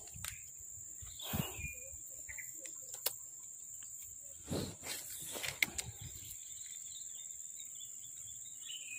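Steady high-pitched insect drone, with a few brief splashy knocks about one and a half and four and a half seconds in.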